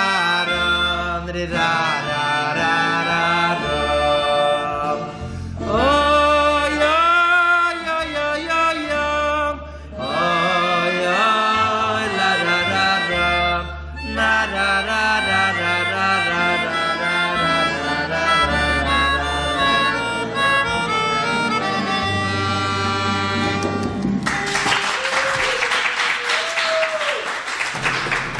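Melodica, a reed keyboard blown through a mouth tube, playing a melody over a low bass line. About four seconds before the end the tune stops and a loud wash of noise takes over.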